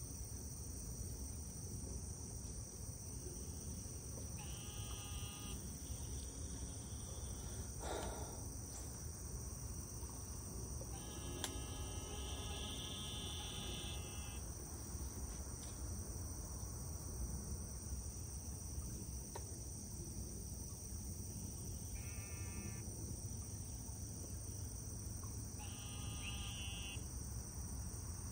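A steady high-pitched chorus of crickets. Several times over, an animal gives short calls of about a second each.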